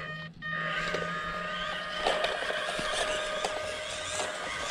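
Electric drive of a 1/18-scale EazyRC Toyota LC80 RC crawler, a small motor turning plastic transmission and axle gears, whining steadily under load as it climbs a dirt slope. Scattered ticks run through it. The whine sets in about half a second in.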